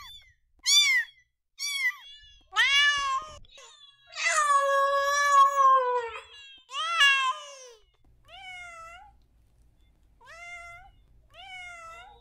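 Domestic cat meowing repeatedly: short meows, then one long drawn-out meow about four seconds in, and quieter meows over a faint low hum in the last few seconds.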